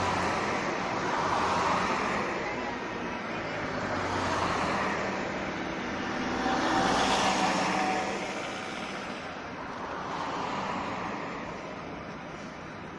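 Road traffic noise: vehicles passing one after another, the rush of tyres and engines swelling and fading about four times.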